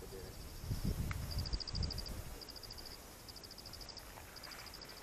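Insects chirping in repeated short trills of rapid high pulses. A low rumbling on the microphone is loudest during the first two seconds.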